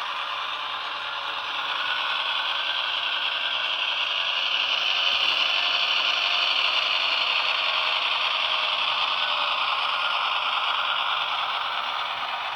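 HO-scale model diesel locomotive running along the track, with a steady mechanical rattle from its motor, gears and wheels that grows louder in the middle and then eases off.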